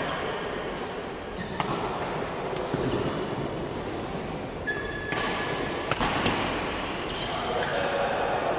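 Badminton rally in a reverberant sports hall: several sharp smacks of racket strings hitting the shuttlecock, with brief squeaks of shoes on the court floor.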